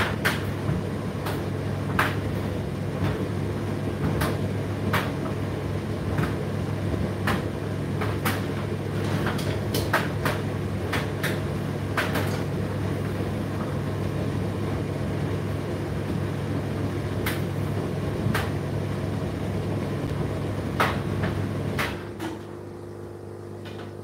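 Indesit IDC8T3 condenser tumble dryer running: a steady motor hum with irregular clicks and knocks from the load tumbling in the drum. About 22 seconds in the sound drops and the knocking stops, leaving a quieter hum.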